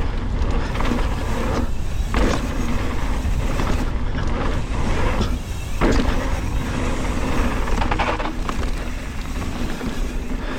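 Wind rushing over the microphone and the tyres of a Chromag Dr. Hawk hardtail mountain bike rolling fast over a dirt flow trail, with a few sharp knocks from bumps and landings.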